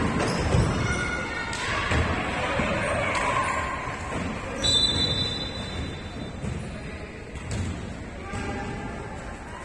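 Sounds of a basketball game in play: a basketball bouncing and thudding on the court, with short high sneaker squeaks, over background music and voices.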